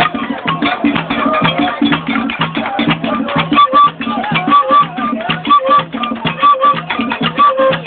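Rhythmic music: fast, even percussion strikes under a sung melody, with short repeated pitched notes.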